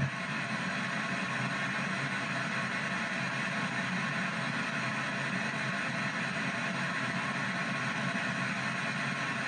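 P-SB7 spirit box sweeping the FM band in reverse, putting out a steady hiss of radio static as it skips from frequency to frequency.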